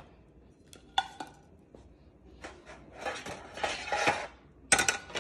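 Kitchenware clatter on a metal baking tray: a sharp clink about a second in, then scraping and rubbing, and a loud clatter near the end.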